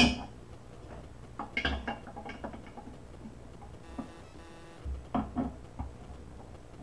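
Channel-lock pliers clicking and scraping on a faucet supply-line nut as it is tightened and the jaws are repositioned: a sharp click at the start, then short clusters of metal clicks about two seconds in and again about five seconds in.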